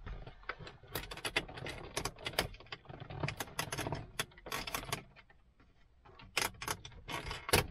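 Plastic trim cover on a 2004 Volvo V70's centre console being pried loose from its clips with a plastic trim removal tool: irregular plastic clicks, knocks and rattles, with a sharp snap near the end as it comes free.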